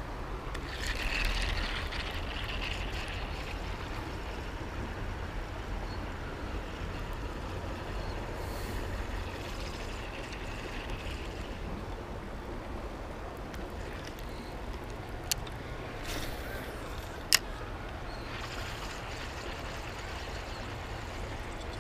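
Steady low rumble of traffic on a highway bridge, with two sharp clicks in the second half, about two seconds apart.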